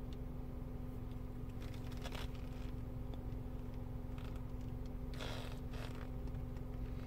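Steady low hum inside a car cabin, with a few soft rustles and taps of a finger working a touchscreen head unit and a jacket sleeve brushing, the clearest about five seconds in.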